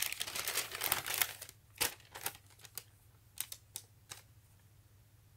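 Plastic shopping bag being rummaged through: a dense crinkling for about the first second, then a handful of separate sharp crackles, and quiet near the end.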